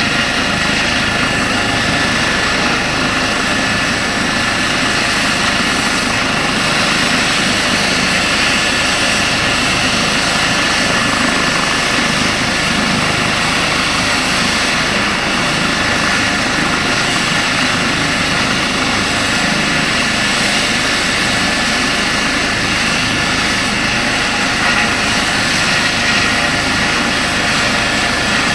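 Eurocopter EC135 twin-turbine helicopter running on the ground with its rotor turning: a steady turbine whine over the rotor noise, unchanging.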